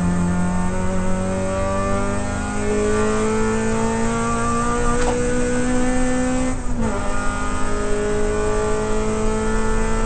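Toyota Corolla AE92 race car's four-cylinder engine heard from inside the cabin, accelerating with the revs climbing steadily. About two-thirds of the way through a quick upshift drops the revs, and they start climbing again.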